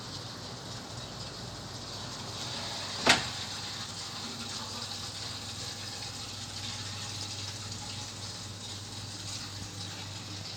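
Folansi FA-12 46 kW air-to-water heat pump running: a steady rushing noise with a constant low hum. One sharp click about three seconds in.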